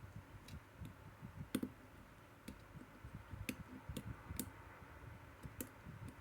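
Lock pick and tension wrench working the wafers of a Sezam combination lock while it is repicked, giving irregular sharp metallic clicks, the loudest about a second and a half, three and a half, four and a half and five and a half seconds in.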